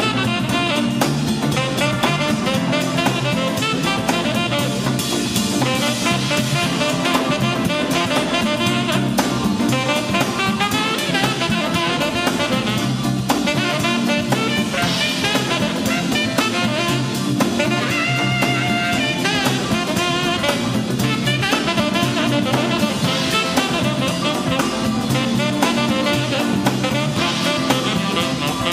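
Soul-jazz band playing live: an alto saxophone leads over drum kit, electric bass and electric guitar.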